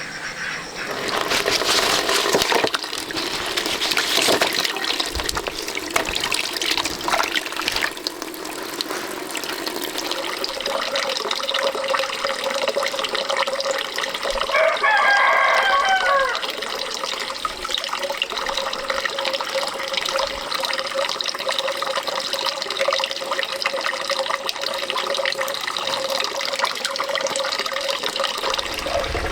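Running, splashing water, busiest in the first few seconds, with a rooster crowing once about halfway through.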